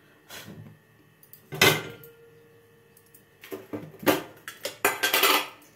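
Metal cookware clattering: one loud clank about a second and a half in that rings on briefly, then a quick run of clinks and scrapes.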